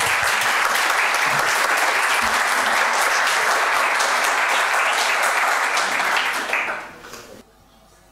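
A small audience applauding, steady clapping for about seven seconds that dies away near the end.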